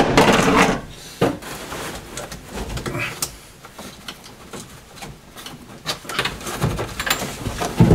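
Hands working behind the instrument panel of a 1980 Opel Kadett D: a loud scrape and knock at the start, then scattered clicks, knocks and rustling of plastic trim and wiring as a cable behind the gauges is unclipped, with another sharp knock near the end.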